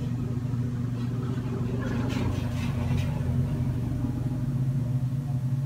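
Steady low mechanical hum, with a faint brief patch of higher noise about two to three seconds in.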